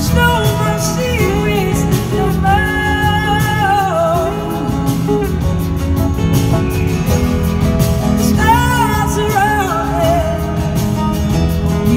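Live band playing a slow soul-blues song, with drums, bass, electric guitars and backing voices under a gliding, wavering lead melody, heard from the audience in a large hall.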